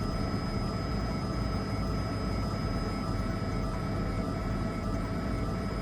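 Steady helicopter noise heard from inside the aircraft: a constant low drone with a few steady high whining tones over it.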